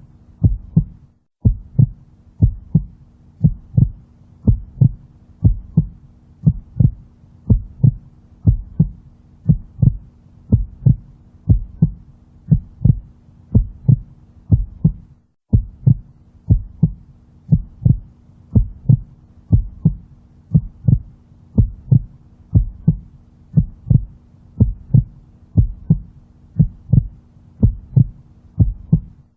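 Heartbeat sound: a slow, steady double thump (lub-dub) repeating about once a second over a low steady hum. It cuts out for a split second twice, about a second in and again about halfway through.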